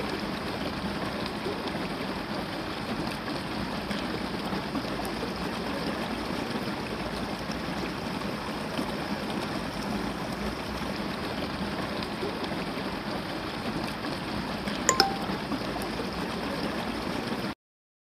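Swollen river water running steadily between concrete bank blocks, an even rushing that cuts off suddenly near the end. About fifteen seconds in, a short electronic ding rings over it.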